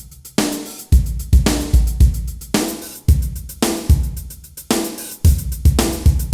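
Drum kit playing alone in a steady mid-tempo beat of kick, snare and hi-hat from a sequenced backing track: the drum intro before the other instruments come in.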